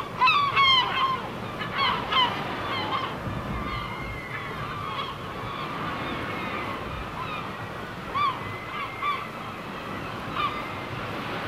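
Birds calling: a quick run of short calls in the first two seconds, then single calls every so often, over a steady rushing background.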